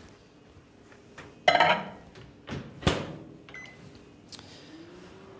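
Microwave oven being worked: a loud clatter, then a sharp latch click as the door shuts, a short keypad beep, and the oven's low hum rising in pitch as it starts up.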